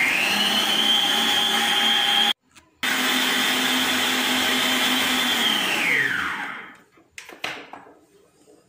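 Arno Planetária Deluxe stand mixer running at high speed, its whisk beating a mousse mixture: the motor's whine climbs at the start, holds steady with a brief break about two seconds in, then winds down as it is switched off about six seconds in. A few light knocks follow near the end.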